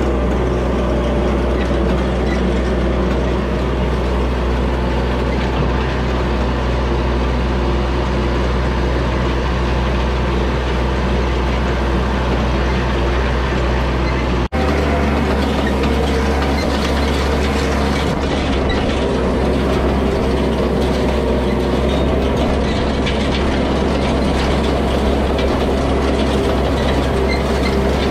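Yanmar compact tractor's diesel engine running steadily while pulling a hay rake. About halfway through the sound breaks off for a moment and comes back with a changed engine note.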